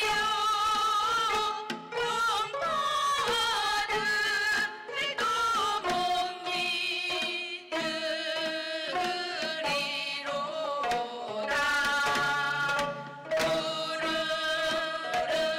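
Korean folk song sung to the player's own gayageum accompaniment (gayageum byeongchang): a woman's voice with wide vibrato over plucked gayageum strings, in phrases with short breaks between them.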